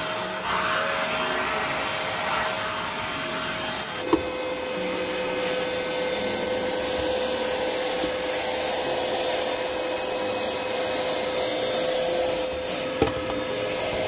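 Deerma VC01 cordless stick vacuum running: a steady motor whine over a rush of suction air. About four seconds in there is a click and the whine drops slightly in pitch, and a brief click comes near the end.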